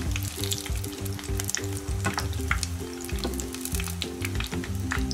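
Potato bread rolls shallow-frying in hot oil on medium heat: a steady sizzle full of sharp crackles and pops. Background music plays underneath.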